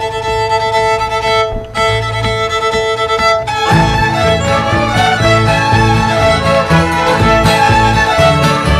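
A group of fiddles holds long bowed notes, then about three and a half seconds in breaks into a fast mountain fiddle tune backed by acoustic guitar and upright bass.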